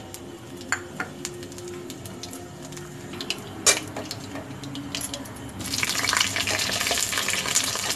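Panch phoron seeds frying in hot oil in a kadai: a light sizzle with scattered crackles and pops, one sharper pop in the middle. About two-thirds of the way through, the sizzling suddenly turns much louder and denser.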